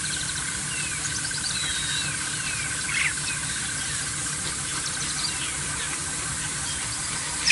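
Outdoor bush ambience of wild birds calling, with many short chirps and whistles over a steady, fast-pulsing trill. One louder call comes about three seconds in.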